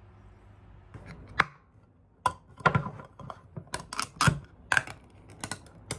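Hand can opener cutting around the rim of a food can: a run of sharp metal clicks and crunches, about two a second.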